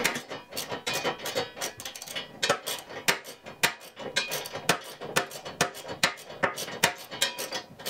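Hand ratchet wrench clicking over and over, several sharp metallic clicks a second, as it tightens the nut onto a new shear bolt in a snowblower's auger shaft.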